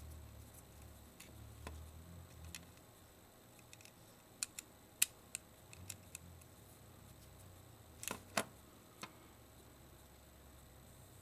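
A precision screwdriver and tiny screws clicking against the plastic gear cover of a camera lens assembly as the screws go back in: scattered light ticks, with a quick pair of louder clicks about eight seconds in.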